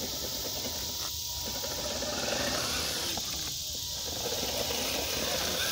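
Steady high buzz of a night insect chorus, with a softer, uneven mechanical whirring underneath.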